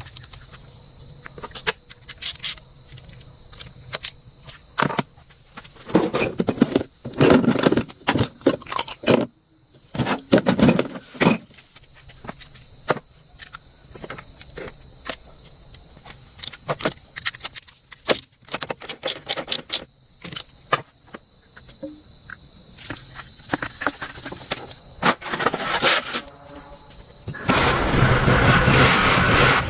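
Scattered clicks and knocks, then near the end an engine starts up and keeps running loudly.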